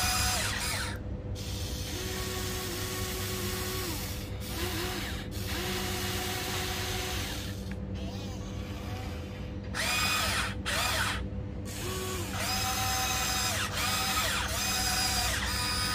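Electric gear motors of a Huina 1594 RC excavator whirring in a series of short runs as the boom, arm and bucket move. Each run rises to a steady pitch, holds, then winds down, with brief pauses between moves.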